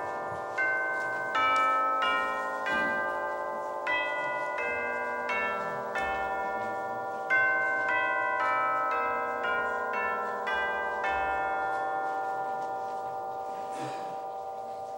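Bell chimes playing a slow melody, one struck note at a time, each note ringing on and overlapping the next. The last note, about eleven seconds in, is left to ring and fade.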